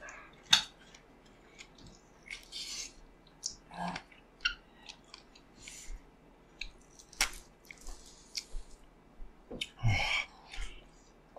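People chewing and biting into raw lemons: irregular mouth clicks and short bursts of chewing noise, the loudest about half a second in, around seven seconds in, and around ten seconds in.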